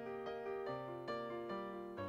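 Soft background piano music: a slow melody of single notes, each struck and left to fade.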